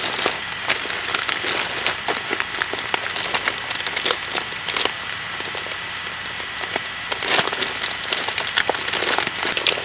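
Packaging crinkling and crackling in irregular bursts as it is pulled and torn open by hand without scissors.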